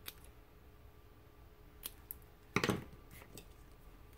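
Scissors snipping into a printed paper strip to cut a small V notch: a few short, sharp snips spread apart, the loudest about two and a half seconds in.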